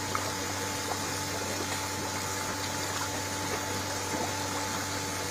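Steady rush of running water in a koi pond, over a constant low hum.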